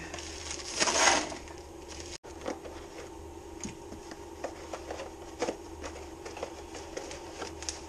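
A plastic shipping envelope being opened by hand, loudest in one burst about a second in, followed by rustling and light clicks as a small cardboard box is handled and opened. A steady low hum runs underneath.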